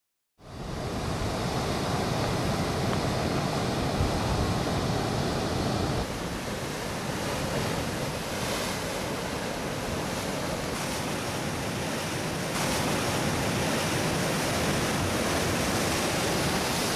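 Ocean surf breaking and washing over rocks: a steady rush of waves that fades in from silence at the start.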